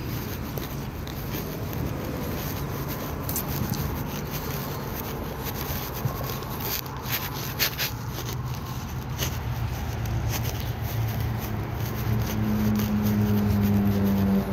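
Footsteps on a gritty concrete sidewalk over a steady low outdoor rumble, with a few sharp scuffs in the middle; near the end an engine drone builds and grows louder.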